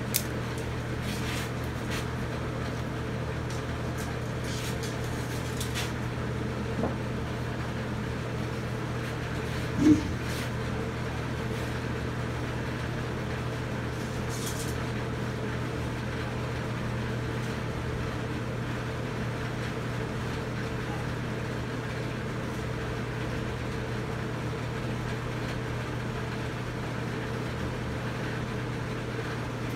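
Steady machine hum over an even hiss, with a few faint clicks in the first few seconds and one brief low thump about ten seconds in.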